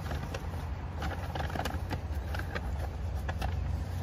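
Low, steady outdoor rumble with faint scattered clicks and rustles.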